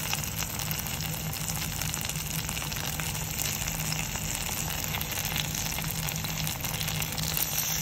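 Brinjal and onion-spice masala sizzling steadily in oil in a cooking pan.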